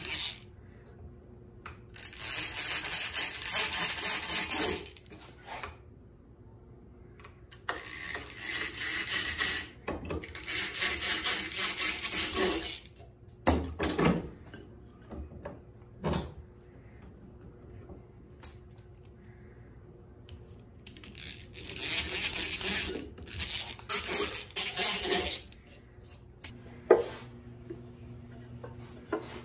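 Eggbeater hand drill cranked in four bursts of a few seconds each, its gears whirring as the bit bores into a wooden strip, with a few single knocks in the pauses between bursts.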